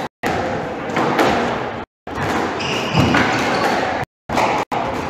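Squash rally: rackets striking the ball and the ball smacking the court walls, with shoe squeaks on the wooden floor. The sound drops out completely for a moment several times.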